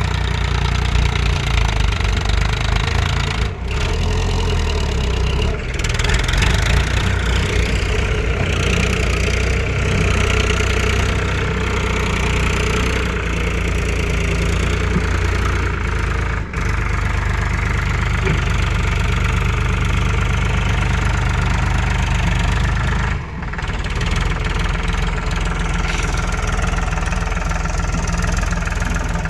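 Diesel engine of heavy farm machinery running steadily under work, with a deep rumble. It breaks off abruptly a few times.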